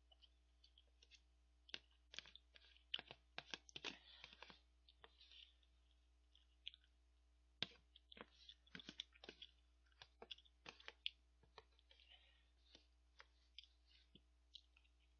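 Close-miked eating: a metal spoon clicking and scraping against a cup-noodle lid, with wet mouth clicks of chewing, in scattered clusters of sharp clicks.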